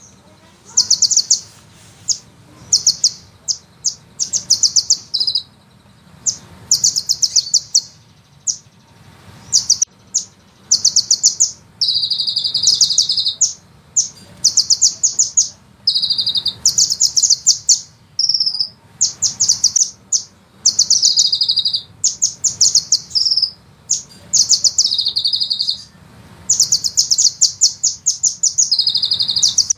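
A sunbird singing very fast, high-pitched trills in short rolling bursts, one after another with brief gaps; some bursts end in a lower drawn-out phrase. A faint steady low hum lies underneath.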